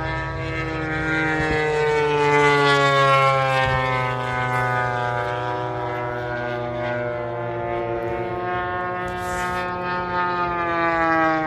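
Radio-controlled model airplane engines running: a buzzing whine that rises a little in pitch and then slowly falls, over a steady lower engine drone.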